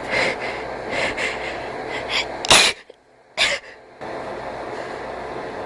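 Several short wheezing breaths, then a loud sneeze about two and a half seconds in. A short hush and a second, shorter burst follow about a second later, and then only a steady background hum.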